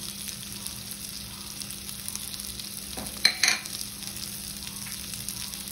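Onion, capsicum and spices sizzling and crackling in hot oil in a kadai while a spatula stirs them. A short clatter of two or three sharp knocks, the spatula striking the pan, comes a little past halfway.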